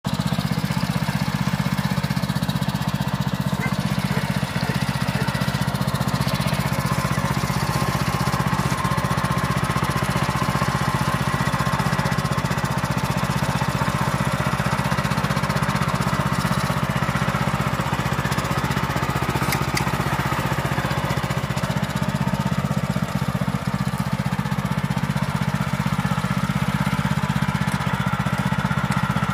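Walk-behind tractor's small engine running steadily at an even speed.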